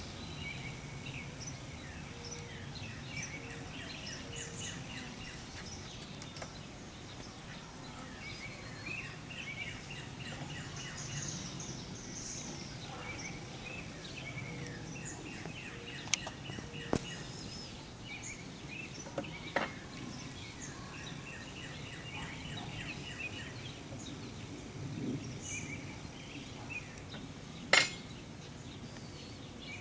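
A handful of sharp metallic clicks and knocks from a steel hive tool working against the wooden hive, the loudest near the end, over birds chirping and a low steady hum.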